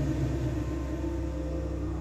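Low, steady rumbling drone with faint held tones above it, a dark ambient horror sound effect.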